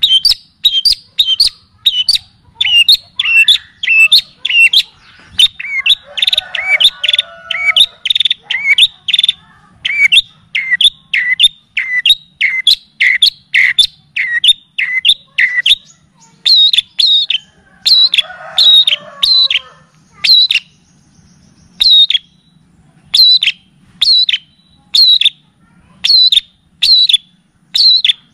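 Recorded songbird song for tutoring a caged bird: a fast run of sharp, high, slightly falling whistled notes, about two to three a second, twice joined by a softer, lower chattering.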